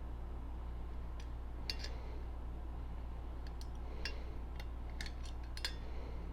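Scattered light metallic clicks and ticks of small parts being worked loose as the button is taken out of a Simplex fire alarm pull station, over a steady low hum.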